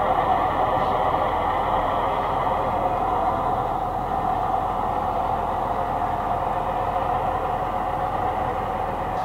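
Garden-railway model diesel locomotive running along the track pulling freight wagons, a steady, even mechanical running sound.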